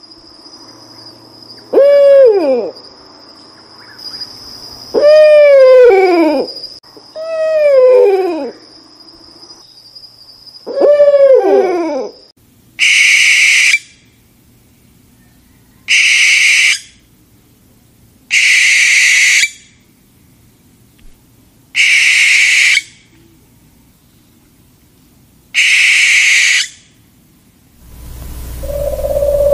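Owl calls. First come four drawn-out calls that drop in pitch, about two to three seconds apart, over a steady high insect-like tone. Then come five harsh, hissing screeches about a second each. A steady electronic tone begins near the end.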